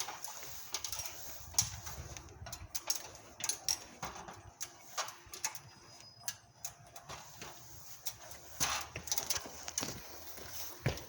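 Irregular footsteps with scattered light knocks and clatter from a person walking while carrying a solar panel balanced on the head.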